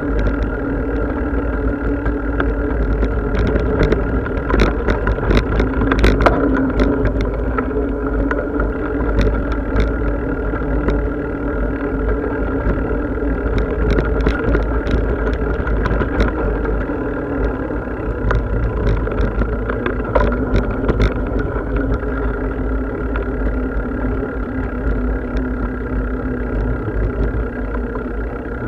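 Riding noise of a bicycle on a park path, picked up by a camera carried on the ride: a steady low rumble with a few steady droning tones over it, broken by scattered clicks and rattles, most of them between about 4 and 7 seconds in, around 14 to 16 seconds, and around 20 seconds.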